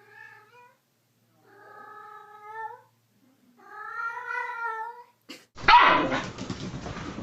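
A cat meowing three times: a short meow, then two long, drawn-out meows. About five and a half seconds in, a sudden, louder noisy sound cuts in.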